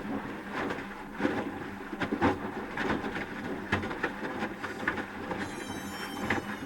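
Asko Quattro W6098X washing machine tumbling its load in the heating phase of a 30 °C quick wash: irregular knocks and swishes of wet laundry and water falling in the drum, with a brief high whine near the end.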